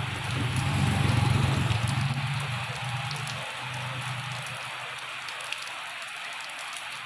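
Steady rain falling on a wet road and foliage, an even hiss throughout. Under it a motorbike engine runs as a low hum, loudest in the first two seconds and fading out about five seconds in.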